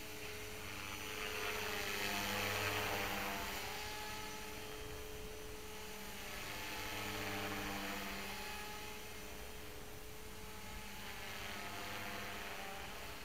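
Electric MSH Mini Protos RC helicopter flying, its motor and spinning rotor blades giving a steady-pitched hum with a rushing hiss. The sound swells and fades three times as the helicopter passes nearer and farther away.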